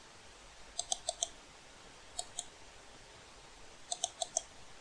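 Computer mouse clicking: about ten sharp clicks in three quick groups, four, then two, then four.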